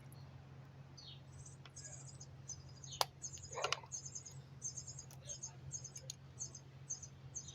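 A bird chirping over and over in short, high chirps, several a second, with a sharp click about three seconds in and a low steady hum underneath.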